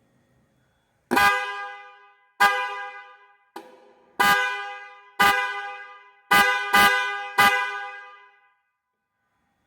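Autovision aftermarket car horn sounding eight short honks, each a two-note chord that starts sharply and dies away over about a second. The third honk is fainter, and the last three come in quicker succession.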